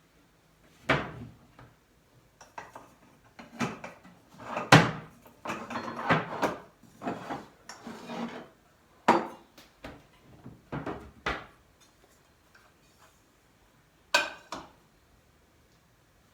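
Kitchen handling sounds: a run of knocks and clatters of dishes, utensils and wood, with a few seconds of scraping and rustling in the middle and one last knock near the end.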